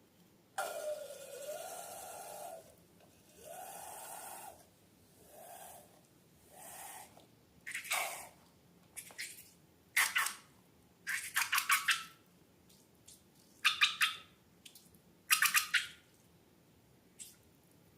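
Balloons being emptied: a few squealing, sputtering releases from the balloon necks, the first about two seconds long, then a run of short, sharp wet squishes and clicks as the slime mixture is handled.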